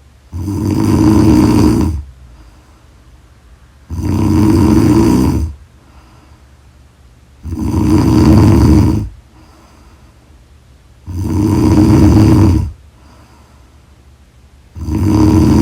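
A sleeping person snoring loudly and regularly: five snores, each about a second and a half long, about every three and a half seconds, with quiet breathing between them.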